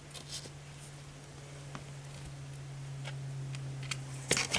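Faint scattered ticks and scratches of young kittens clambering about in a blanket-lined cardboard box, with a louder knock a little after four seconds. A steady low hum runs underneath.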